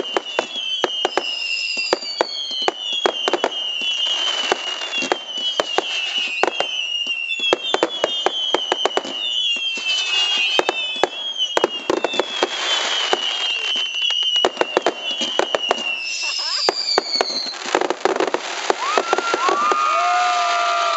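Firework cake firing screaming whistle shots in quick succession: many overlapping high whistles, each falling in pitch, with sharp bangs and crackle throughout. Near the end a lower whistle rises and then holds.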